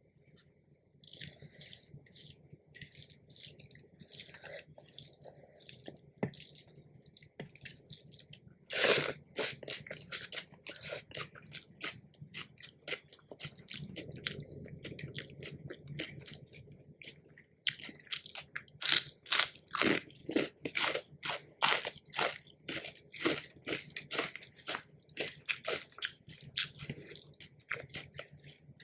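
A person eating crunchy food close to the microphone: soft chewing, one loud crunching bite about nine seconds in, then from about eighteen seconds loud, regular crunching chews, roughly two a second.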